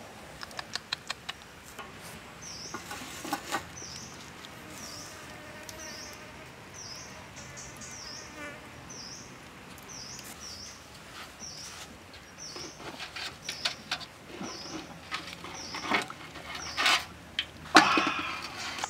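Metal clinks and clanks from a cooking pot and the plate of steamed fish being handled, the loudest clank near the end as the plate is lifted off the pot. Behind them a high chirp repeats about once a second.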